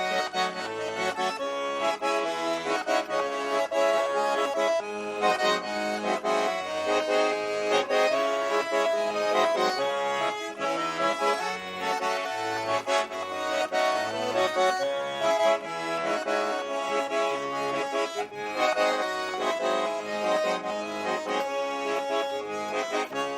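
Accordion playing a melody with bass accompaniment: the instrumental introduction to a Russian song, before the singing begins.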